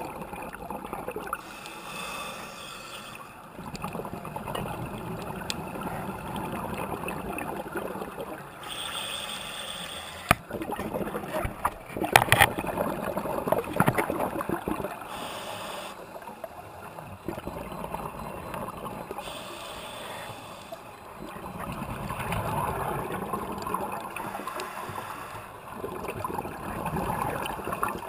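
Scuba exhaust bubbles gurgling from a regulator, heard underwater through the camera housing. The noise comes in long swells with each breath, with a louder crackle of bubbles about twelve seconds in.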